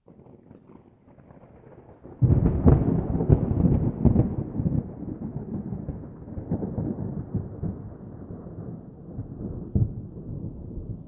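Distant thunder: a low rolling rumble that starts faint, breaks into a loud crackling peal about two seconds in, then rolls on and slowly dies away, with one more crack near the end.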